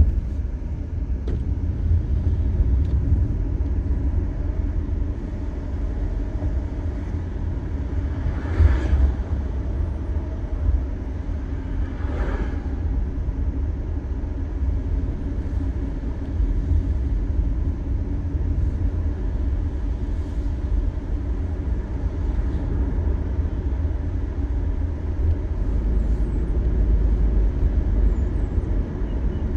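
Car driving, heard from inside the cabin: a steady low rumble of tyres and engine, with two brief swells of noise about nine and twelve seconds in.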